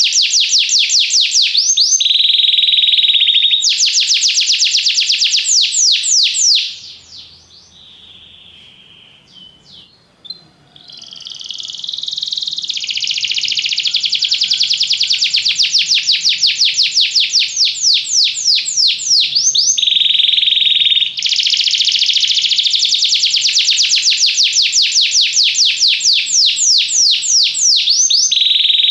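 Domestic canary singing: long runs of rapid, repeated trilled notes and some steady whistled notes. The song breaks off about six seconds in and resumes after a pause of about four seconds.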